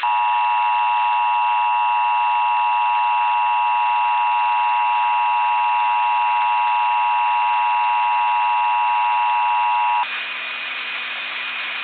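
Emergency Alert System attention signal: the two-tone 853 and 960 Hz alarm held steady for about ten seconds over a hiss, with weaker tones around it. It cuts off near the end, leaving a quieter hiss with a faint high whine.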